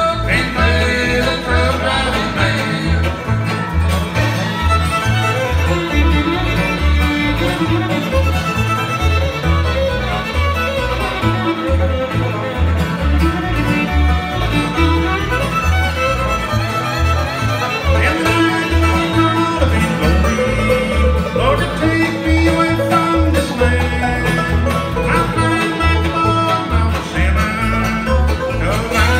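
Live acoustic bluegrass band playing an instrumental passage: bowed fiddle over banjo and acoustic guitar, with steady pulsing bass notes underneath and no singing.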